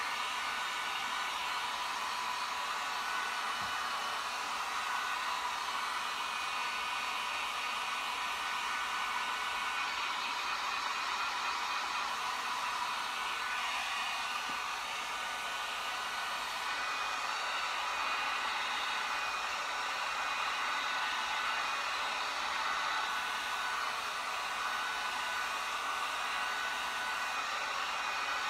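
A small electric blower running steadily: an even whooshing hiss of moving air with a few faint steady tones, unchanging throughout.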